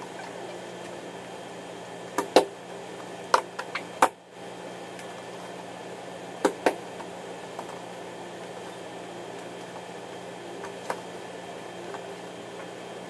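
Jiu-jitsu drilling on mats: a handful of sharp slaps and thuds, most of them packed together in the first third, over a steady room hum.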